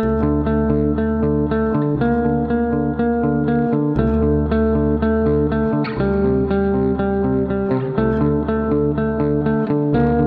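Instrumental music that starts suddenly out of silence: rapid plucked guitar notes over a bass line that moves to a new note about every two seconds.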